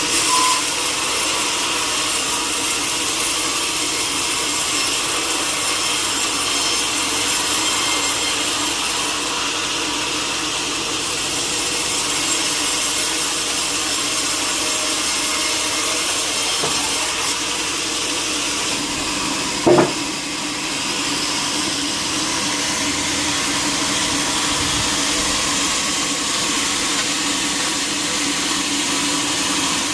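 Sawmill saw cutting through timber: a steady, unbroken sawing noise with a few held tones, and one short sharp knock about two-thirds of the way through.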